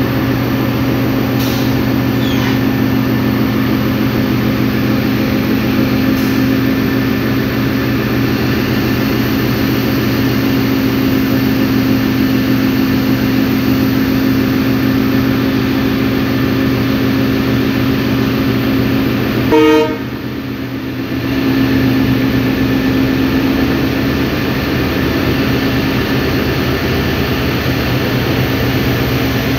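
Diesel locomotive engines running steadily with a deep, even hum during shunting. About twenty seconds in there is a short horn toot, after which the engine sound briefly drops before returning.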